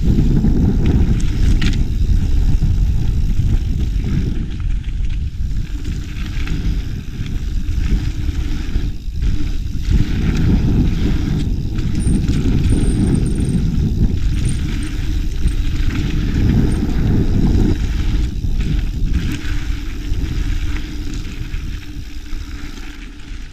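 Mountain bike rolling along a dirt trail, recorded by a helmet or bike-mounted action camera: a continuous rumble of wind on the microphone and tyres and frame rattling over the ground, easing off near the end.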